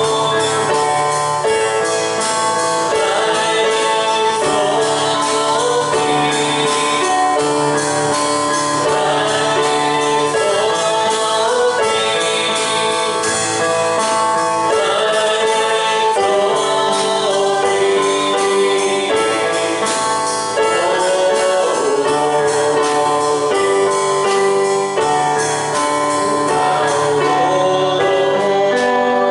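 Congregational gospel worship music: a band with keyboard playing and voices singing, with a steady beat.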